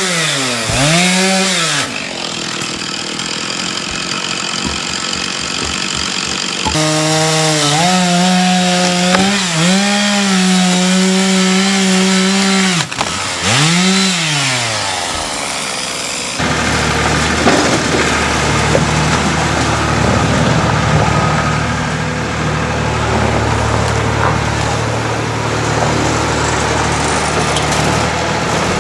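Two-stroke chainsaw engine being throttled up and down several times, with a stretch held at high revs in between. About halfway through, a deeper, steadier engine sound takes over.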